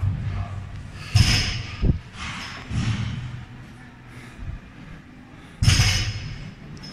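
Loaded barbell with bumper plates dropping onto the gym floor during deadlifts: two loud thuds with a short clatter, about a second in and near the end, with a sharper knock and quieter knocks between.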